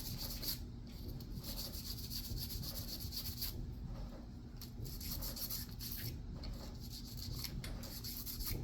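Continuous scratchy rubbing as a dirty part of a field-stripped .45 ACP pistol is scrubbed clean by hand, with a faint steady hum underneath.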